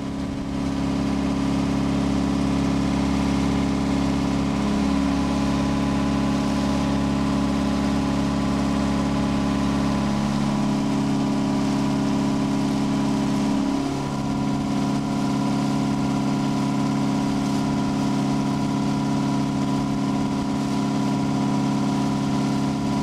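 An engine runs steadily at a constant speed, with a few brief dips in pitch partway through.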